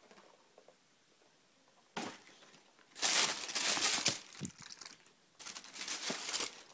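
Packaging wrapping crinkling and rustling as it is handled while boots are unwrapped, in two long spells after a single sharp knock about two seconds in.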